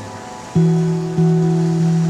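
Background music on a plucked guitar: about half a second in, a note or chord is struck and left to ring, then struck again twice at even spacing.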